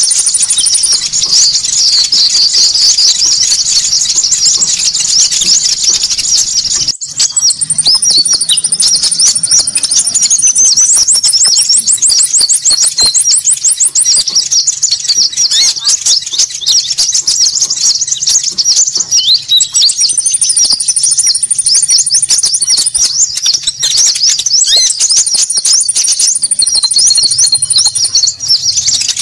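Bird-lure recording of a noisy, busy chorus of small birds: dense, rapid, high chirping, several times joined by a thin high whistle held for a second or two, with a fast even trill near the middle. The sound drops out for an instant about seven seconds in.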